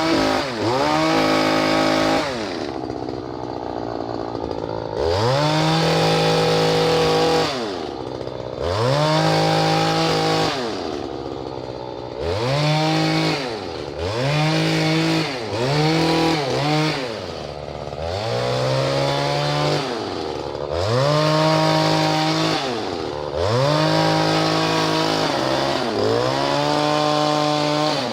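Stihl KM94RC combi-tool engine driving a long-reach hedge trimmer attachment, revved up to full throttle and dropped back to idle about a dozen times while trimming a privet hedge.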